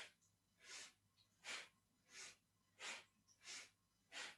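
Faint, quick, forceful breathing through the nose, in and out in an even rhythm of about three breaths every two seconds. Each breath paces one turn of a seated spinal-twist breathing exercise from Kundalini yoga.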